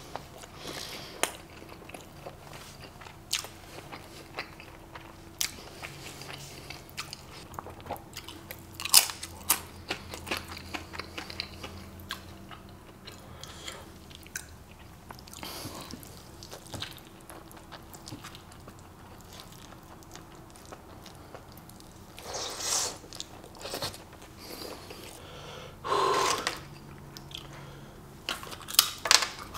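Close-miked eating: wet chewing of a tortilla-wrapped burrito or taco, with many small mouth clicks and smacks. There are a couple of louder bites near the end.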